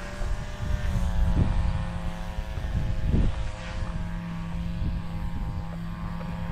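String trimmer engine running at a steady pitch in the background, a constant drone. Low buffeting rumble on the microphone, with a few louder thumps.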